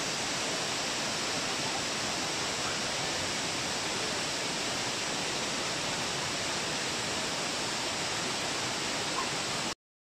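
Waterfall: a steady, even rush of falling water, cutting off abruptly near the end.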